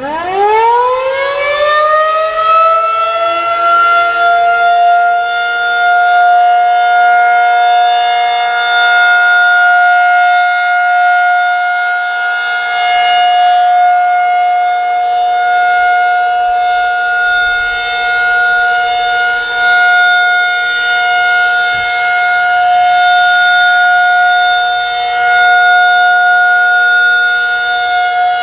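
Federal Signal 2001-SRN rotating outdoor warning siren winding up from a low pitch to a steady high tone in the first two seconds, then holding it as the steady alert signal. The loudness swells and dips slightly as the siren head turns.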